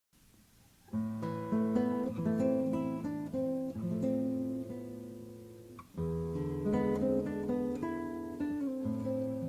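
Music: acoustic guitar playing plucked and strummed chords, coming in about a second in, fading away, and starting a new phrase about six seconds in.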